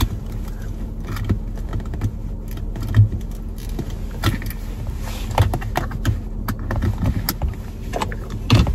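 Things being handled and moved about inside a car cabin: scattered clicks, knocks and light rattles, the loudest about three seconds in and near the end, over the steady low hum of the car.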